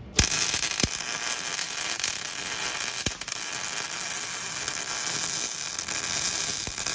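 MIG welder arc crackling and spattering steadily while a bead is laid, with a few sharp pops. The shielding-gas bottle is nearly empty, which makes the weld spatter.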